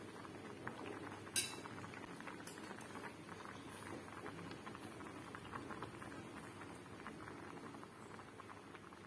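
Macaroni boiling in water in a stainless steel pot: a steady bubbling with many small pops, and one sharp click about a second and a half in.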